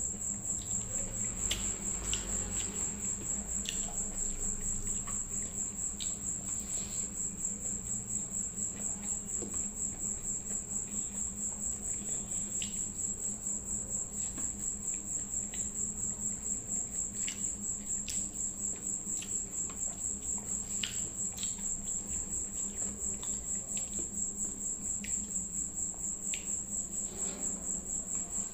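Quiet, scattered mouth clicks and smacks from eating rice and soya chunk curry by hand, under a steady, high-pitched cricket trill and a low hum.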